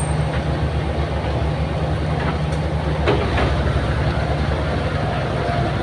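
Heavy diesel engine of construction machinery running steadily under load, a pulsing low drone, with a few faint knocks over it.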